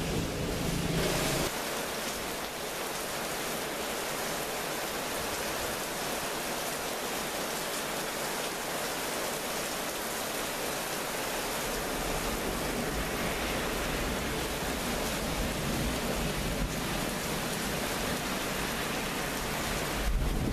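Heavy thunderstorm rain falling steadily: a dense, even hiss with no distinct thunderclaps. A lower rumble in the first second and a half stops abruptly.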